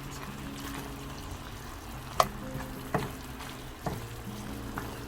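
Braised garlic chicken sizzling in the pan as its soy-based sauce reduces, with a cooking utensil knocking against the pan four times while it is stirred.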